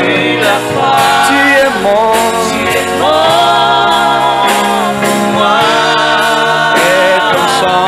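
Gospel worship song: voices holding long sung notes with a wavering vibrato over steady accompaniment.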